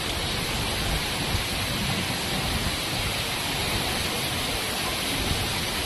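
Heavy rain falling, a steady, even hiss of downpour.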